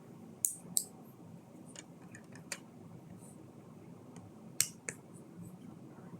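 Plastic LEGO pieces clicking as they are handled and pressed together: about six sharp, short clicks spread irregularly, the loudest about half a second in, just under a second in, and about four and a half seconds in.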